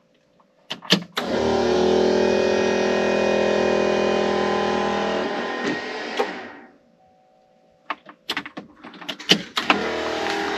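Electric fuel pump switched on after a couple of clicks, running steadily for about five seconds and then winding down, pushing fuel out through the disconnected main fuel line to flush it. After more clicks it starts again near the end.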